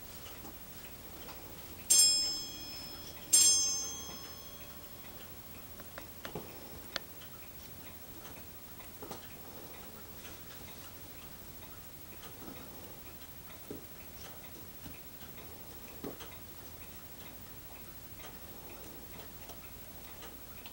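Faint ticking, with two ringing bell-like strikes about a second and a half apart, each dying away over a second or two.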